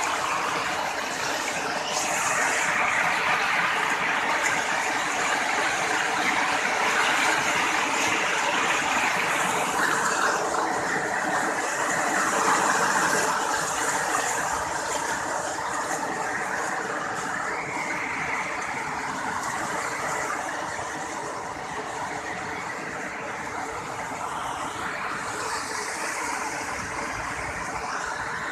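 Waterfall: a steady rush of falling water, a little louder in the first half.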